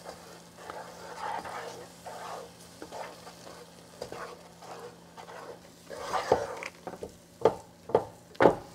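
Wooden spoon stirring and scraping thick, hot halva paste of toasted flour, oil, butter and syrup in a metal pot, with a light sizzle. From about six seconds in, the spoon knocks sharply against the pot several times.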